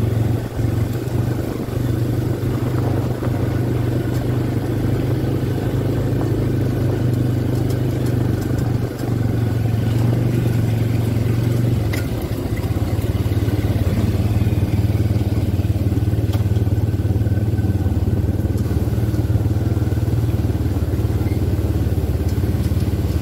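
Quad bike (ATV) engines running at a steady cruising pace along a road, a constant low drone whose note shifts slightly about twelve seconds in.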